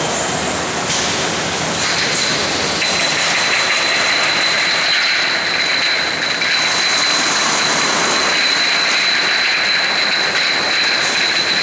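A large mass of empty glass jars clinking and rattling against each other as a layer is moved off a depalletiser onto the outfeed conveyor, over steady machine noise. A steady high whine comes in about three seconds in.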